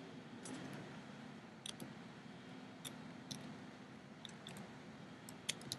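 Light clicks of a computer mouse and keyboard during text editing, about ten of them scattered unevenly, over a faint steady hum.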